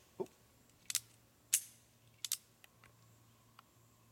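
Single-action revolver misfiring on a 45 Long Colt cartridge: the hammer falls with a click and no shot, then the action is worked again. A series of short, sharp metallic clicks, some in close pairs, about a second apart.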